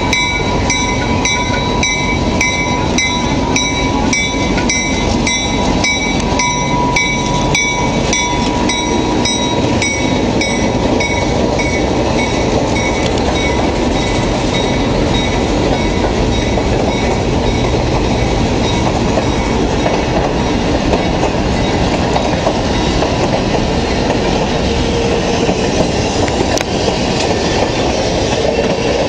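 An EMD GP9 diesel locomotive passes hauling a freight train, its engine running, while a bell rings a little under twice a second and fades out about ten seconds in. The boxcars and tank cars then roll by with steady wheel noise on the rails.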